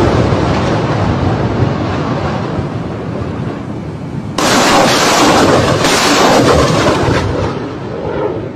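Truck-mounted multiple rocket launchers firing a salvo, a loud rushing roar of rockets leaving their tubes. The roar fades, then a fresh launch cuts in sharply a little over four seconds in and dies away.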